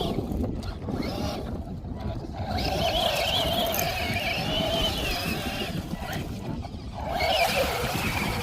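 Electric motor and gears of a radio-controlled truck whining under throttle in bursts, the pitch wavering as the throttle changes and cutting out twice. Wind rumbles on the microphone throughout.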